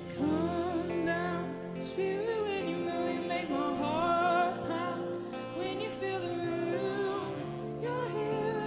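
Worship music: wordless, melismatic singing over a sustained band accompaniment with guitar.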